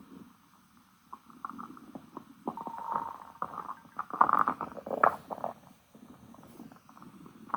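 Stomach growling: a run of irregular gurgles and rumbles, loudest from about two and a half to five and a half seconds in, then quieter.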